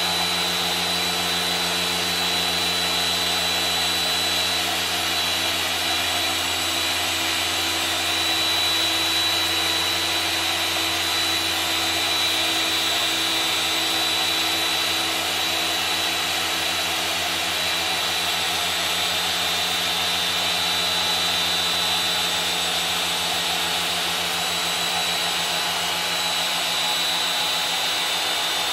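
Porter Cable 7424XP random-orbit (dual-action) polisher running steadily with a high whine from its 4.5 amp motor, the pad working polish across a painted car panel.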